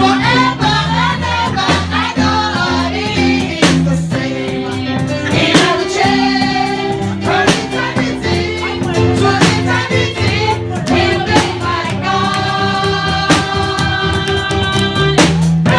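Gospel song with singing over a band: a steady bass line and regular drum strokes under the voices, with several long held notes.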